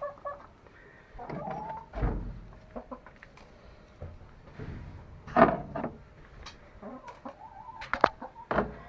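Hens clucking in short calls, with several sudden knocks and rustles mixed in; the loudest knock comes about halfway through.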